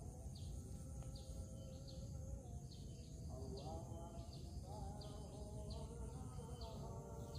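Rural pond-side ambience: a bird repeating a short high chirp roughly once or twice a second over a steady insect drone and a low background rumble.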